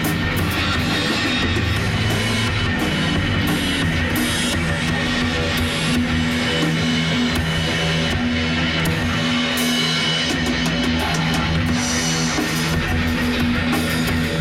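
Drum kit played with cymbal and drum hits, along with heavy rock music carried by electric guitar.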